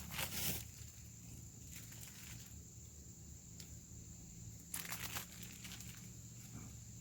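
Faint rustling and scuffing: a few short noisy bursts near the start, around two seconds in and around five seconds in, over a steady high-pitched tone.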